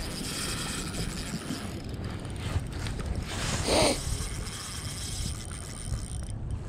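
Wind buffeting the microphone on open water, a steady low rumble, with one short louder sound just before four seconds in.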